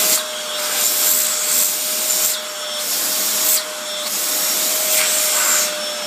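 Vacuum cleaner running with a steady whine. Its rushing suction hiss drops sharply and comes back a few times as the nozzle is worked over a cat's fur.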